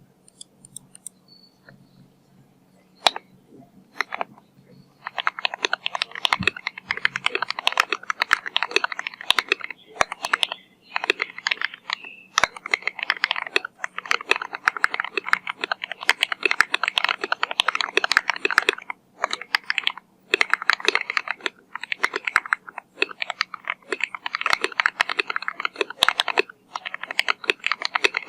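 Typing on a Keychron Q2 mechanical keyboard with Akko CS Lavender switches: a few scattered keystrokes at first, then fast continuous typing from about five seconds in, broken by brief pauses.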